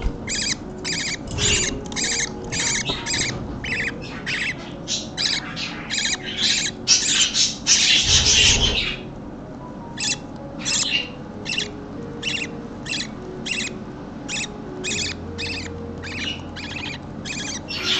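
Budgerigar chick begging calls, repeated short cheeps about three a second while an adult budgie feeds it. The calling grows louder and denser about seven to nine seconds in, breaks off briefly, then goes on at about two a second.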